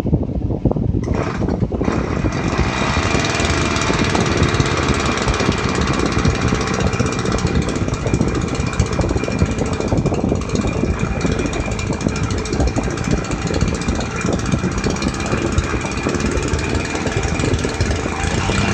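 Small single-cylinder engine of a portable water pump running steadily at an even speed, its carburettor mixture screw being set so that it keeps running.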